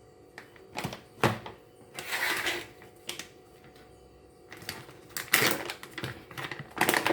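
Spice containers and a measuring spoon being handled: sharp clicks and a knock, with short scratchy bursts of scraping and shaking, as powdered spices are measured into a blender jar.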